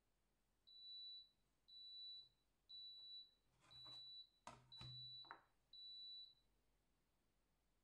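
Six evenly spaced high electronic beeps, one a second, each about half a second long and all at one steady pitch. In the middle come a few soft knocks as an acrylic quilting ruler is handled and set down on the table.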